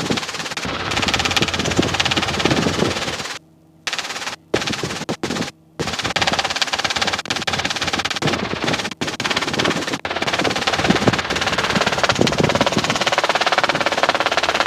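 Robinson R22 helicopter's piston engine and rotor running in flight, heard in the cabin as a steady, rapid rattling drone. The sound drops out briefly several times between about three and a half and six seconds in.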